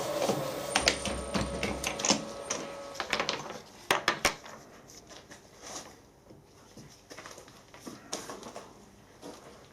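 A machine spindle runs down, its tone falling and fading over the first three seconds, under sharp metallic clicks and knocks. The loudest knocks come about four seconds in, then sparser, quieter clicks follow.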